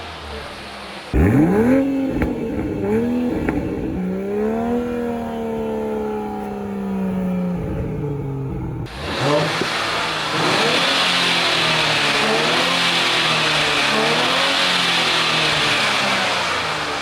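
Turbocharged sports-car engine revving: a few quick blips about a second in, then a long rev held high that falls away. Just before the halfway point it cuts to the car being driven, its engine pitch rising and falling under a loud steady hiss.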